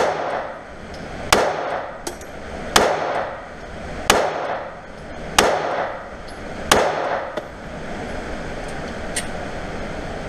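Six shots from a Glock 43 9mm pistol, fired at an even pace about one and a half seconds apart, each with a short echoing tail off the walls of an indoor range.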